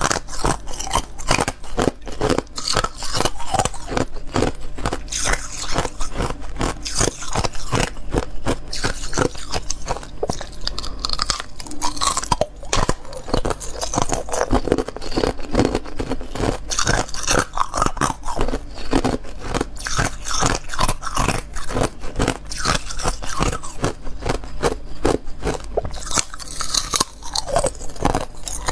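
Thin, clear ice being bitten and chewed, a dense unbroken run of sharp crunches and crackles.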